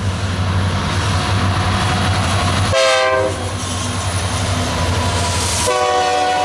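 Diesel-hauled freight train passing close by with engine rumble and wheel noise. The lead locomotive's horn sounds about three seconds in, its pitch dropping as it goes by, then sounds again in a long blast near the end.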